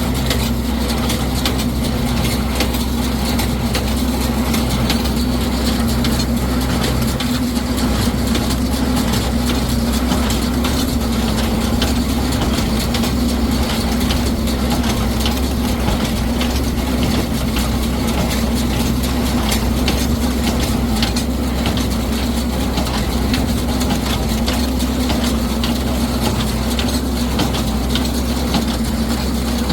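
Tractor engine running steadily under load while pulling a New Holland 67 Hayliner square baler that is baling hay, with a constant low drone and a dense rattle and clatter from the baler's moving parts.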